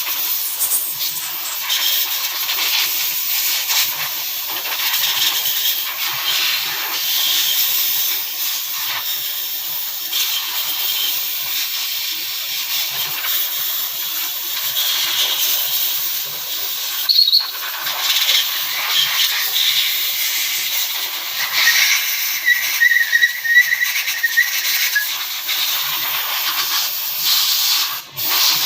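Steady, loud hissing, like air or liquid being sprayed, with a short run of squeaky chirps about three quarters of the way through.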